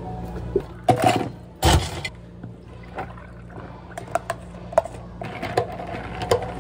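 Thick blended strawberry milk tea poured from a plastic blender jug into a plastic cup, with two louder noises about a second in and light clicks and knocks of the jug and spoon after.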